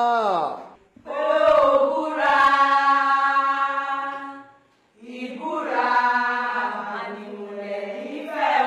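A voice singing a slow chant in long, held phrases. The first phrase falls in pitch and fades just under a second in, and there is a short break about five seconds in.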